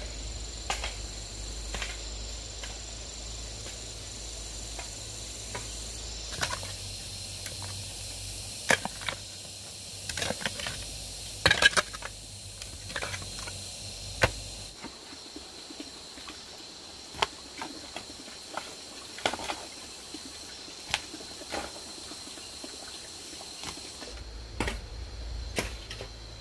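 Scattered sharp knocks and taps over a steady high insect chirring. The background changes abruptly a few times.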